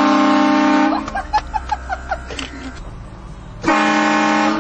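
Train air horn sounding two blasts, each a loud chord of several steady tones. The first lasts about a second from the start; the second comes near the end. Short cries from people are heard between the blasts.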